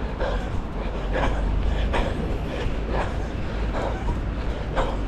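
Wind rumbling on the microphone of a camera carried by a runner, crossed by the regular short sounds of the runner's stride and breathing, about one to two a second.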